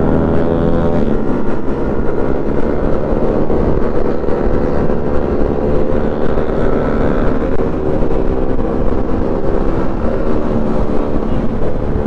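Small 110cc single-cylinder motorcycle engine running at cruising speed, heard from the rider's seat, with wind rushing over the microphone. The engine drone is steady, its pitch drifting a little.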